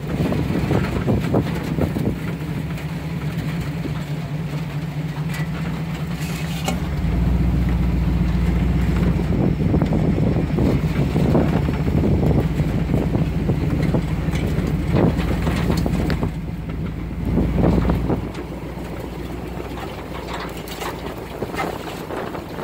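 Truck engine working hard as it pushes through mud and tall grass, getting louder and heavier about seven seconds in and easing off near the end while the wheels struggle for grip. Brush crackles and knocks against the body now and then.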